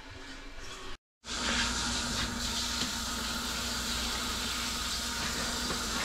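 Water from a handheld shower head spraying onto a tiled bathroom floor, a steady hiss of rinsing that starts about a second in.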